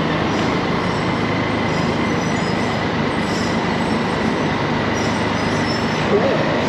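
Steady loud mechanical din in a car ferry's vehicle deck, with a faint steady high whine running through it.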